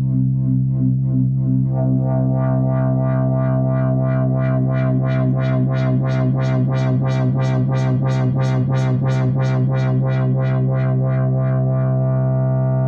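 Modular synthesizer drone from two Synthesizers.com Q106 oscillators, a pulse wave and a ramp wave, through a Yusynth Minimoog ladder filter clone, its cutoff swept rhythmically about three times a second by an LFO. The sweeps open brighter and wider up to about two-thirds through, then close down again.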